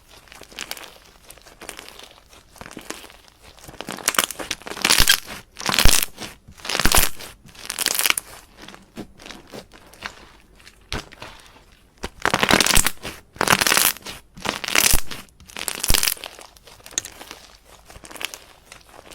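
Slime being squeezed and poked by hand, giving bursts of crackly, crunchy popping with sharp clicks. It comes in two louder spells, one a few seconds in and another after a quieter stretch in the middle.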